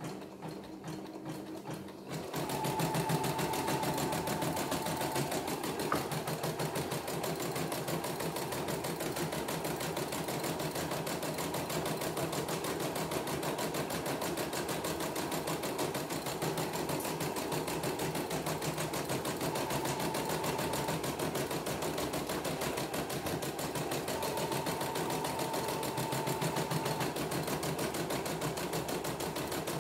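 CNY computerized embroidery machine stitching a design, its needle running in a fast, even clatter as the hoop moves the fabric; it gets louder about two seconds in. A faint high whine comes and goes a few times. The machine is on a test run after servicing.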